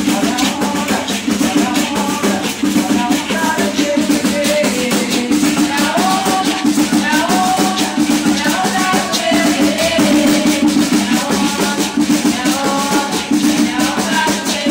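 Terecô ritual music: hand drums and maracas keep up a steady, driving rhythm while voices sing over them.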